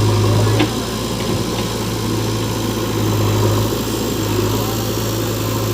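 Diesel engine of heavy earthmoving machinery running at a steady low idle, with a deep hum that eases slightly under a second in and swells again briefly around the middle.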